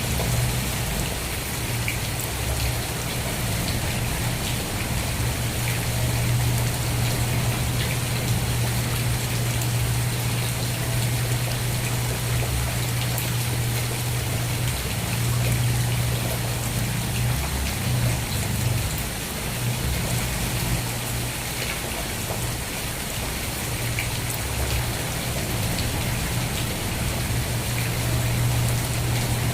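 Steady rain falling: a dense even hiss with scattered drop ticks, over a steady low hum that falters briefly about halfway through.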